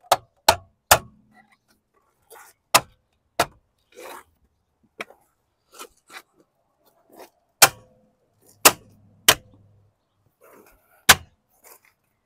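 Rubber mallet striking a plastic 15-inch wheel cover on a car wheel to snap its retaining tabs into place: about nine sharp blows in irregular groups, three in quick succession at the start, with faint knocks and scraping of the cover between.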